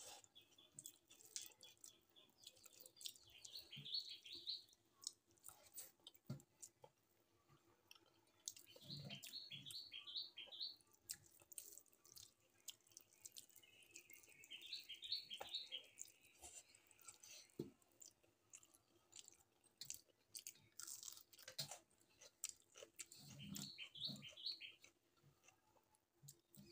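Quiet clicks and soft squishes of a hand mixing rice and dal on a metal plate, with some chewing. A bird chirps four times, each a quick run of four or five high notes.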